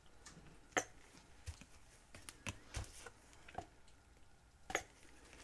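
Light clicks and knocks of plastic paint bottles and a cup being handled on a work table while acrylic paint is layered into the cup, about six in all, the sharpest about a second in and near the end.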